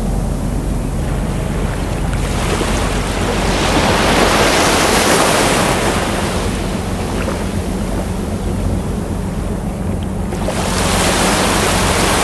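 Ocean waves breaking on a shore: a steady hiss of surf that swells into two wave surges, one about two seconds in lasting a few seconds and another starting near the end.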